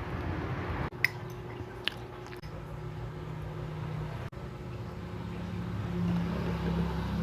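Close-miked chewing of food, a low wet rumble with a couple of sharp clicks in the first two seconds.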